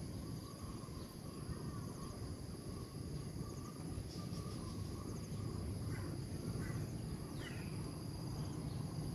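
Steady chorus of insects trilling high and without pause, with a few faint chirps a little past the middle and a low rumble of background noise underneath.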